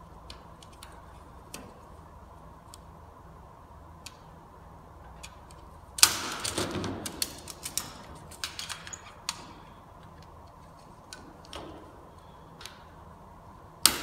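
Tape measure being handled on a truck's metal roof: scattered light clicks and ticks, a burst of rapid rattling clicks about six seconds in, and a sharp click near the end.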